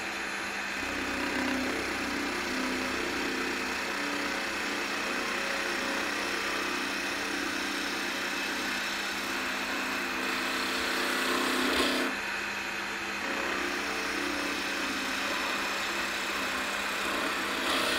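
Wood lathe running while a skew chisel cuts the spinning magnolia blank: a steady hiss of wood being shaved over the lathe's hum. The cutting grows louder from about ten seconds in and drops back abruptly about two seconds later.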